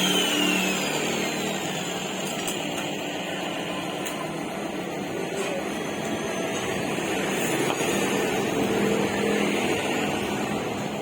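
A power tool spinning down, its whine falling in pitch and fading over the first two seconds, followed by steady mechanical background noise.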